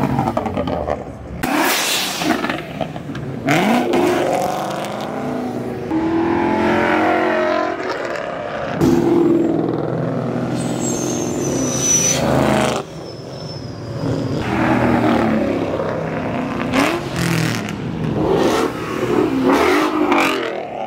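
Car engines revving and accelerating hard past, one after another, rising and falling in pitch. The sound cuts abruptly several times. A thin high whistle falls in pitch about ten seconds in.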